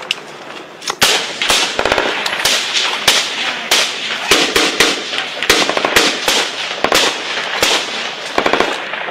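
Small-arms gunfire in a firefight: irregular single rifle shots mixed with short rapid bursts of automatic fire, the sharp cracks coming a few to the second and echoing.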